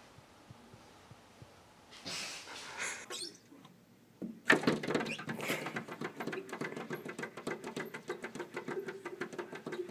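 A cat's rattling growl with a steady pitch, starting about four seconds in and running on.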